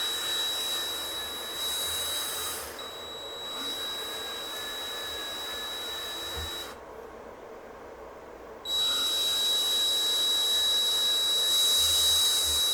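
Small power drill running with a steady high whine and hiss as it bores slowly into a rifle's wooden stock. It stops for about two seconds just past the middle, then starts again and runs until near the end.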